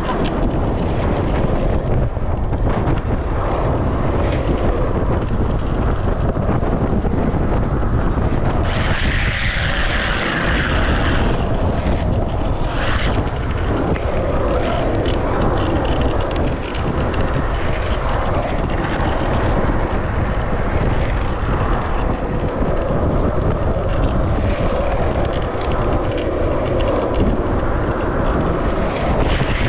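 Wind rushing over the microphone with longboard wheels rolling fast on asphalt, a steady loud rush with a few brief swells of brighter hiss about a third of the way through.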